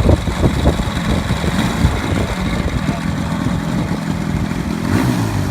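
Desert Aircraft DA-200 gasoline two-stroke engine of a 124-inch Carden Pro RC aerobatic plane running steadily, turning a three-blade propeller.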